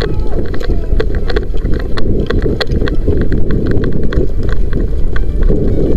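Heavy rumbling handling and wind noise on a body-worn camera's microphone as an airsoft player moves, with many sharp irregular clicks and knocks, several a second.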